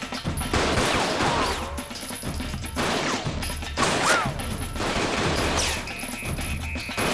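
Bursts of rapid gunfire, several volleys of shots in quick succession with short pauses between them.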